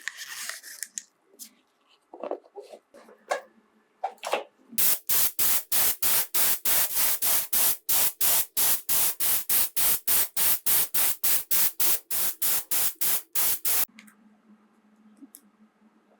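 Trigger spray bottle squeezed rapidly and repeatedly, about four hissing squirts a second for roughly nine seconds, then stopping abruptly. A few light clicks and knocks come before it.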